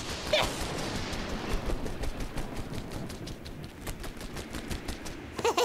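Cartoon sound effect of a rapid, crackling flutter as a cartoon chick hovers beating its wings, with short squeaky chick cries about half a second in and again near the end.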